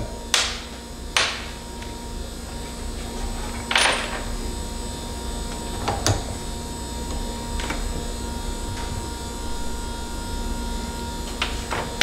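Scattered metal clicks and knocks from a small steel ferrule and tools being handled at a bench vise, about half a dozen in all, over a steady electrical hum. The die grinder is not yet running.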